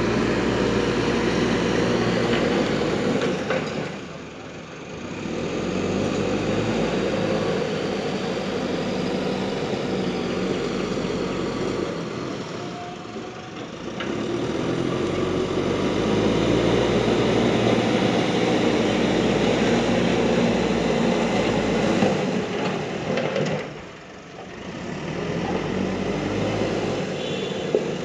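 Heavy vehicle engines running steadily, the sound briefly dropping away three times before building back up.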